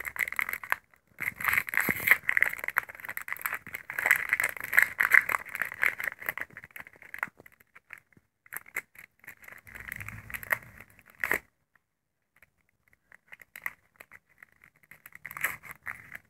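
Foil wrapper of a Pokémon trading-card booster pack crinkling and tearing as it is opened: a dense crackle for about seven seconds, then another shorter stretch of rustling with a few low knocks, and only faint scattered clicks near the end.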